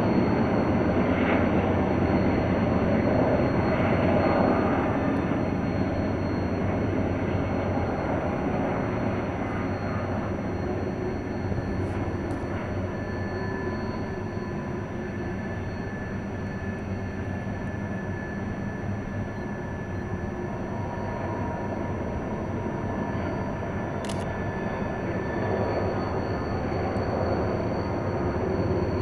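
Long freight train hauled by seven diesel locomotives working upgrade: a steady distant rumble, a little quieter in the middle and rising again near the end.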